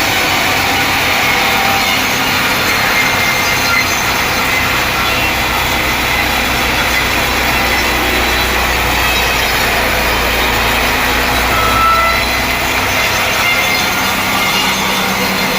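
Sawmill saw cutting steadily through a mahogany log, a continuous loud cutting noise that runs without a break.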